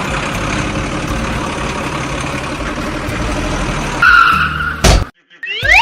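Edited cartoon sound effects: a noisy rush of about four seconds, then a short squeal, a sharp hit, a brief silence, and quick rising whistle-like glides near the end.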